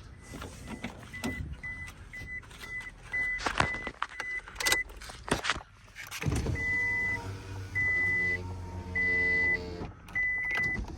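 Scion xB's warning chime beeping at a high pitch, in quick short pulses at first and then in slower, longer beeps, with a few clicks in between. About six seconds in, a power window motor starts and hums steadily under the chime as the windows are lowered.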